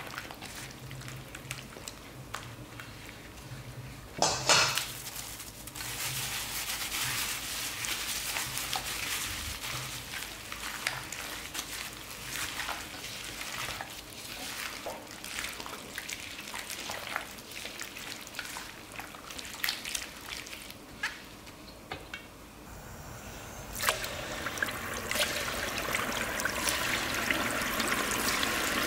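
A gloved hand squelching chicken pieces and perilla leaves through thick wet batter in a metal bowl, with one short loud noise about four seconds in. Near the end, battered chicken goes into hot oil and fries with a steady sizzle.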